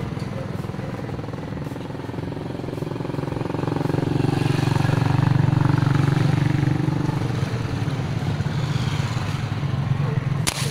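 A motor vehicle engine runs steadily, growing louder a few seconds in and then easing off. Near the end comes a single sharp snap as a rubber-powered tiksay spear gun is fired.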